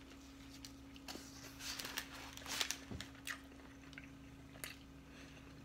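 A person biting into and chewing a sandwich: a few soft mouth noises, mostly around two to three seconds in, over a steady low hum.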